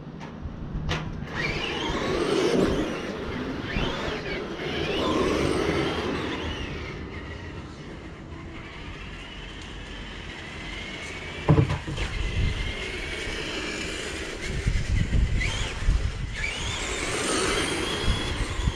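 Electric motor of a small radio-controlled car whining, rising and falling in pitch again and again as it speeds up and slows down, with a single sharp knock a little past halfway.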